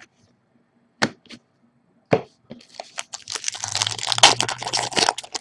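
A couple of short sharp clicks as cards are handled, then from about three seconds in the dense crinkling and tearing of an Upper Deck hockey card pack's wrapper being ripped open.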